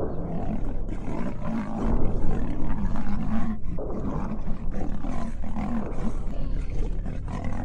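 Lion and tiger roaring and growling as they fight, the calls overlapping one after another without a break, over a steady low hum.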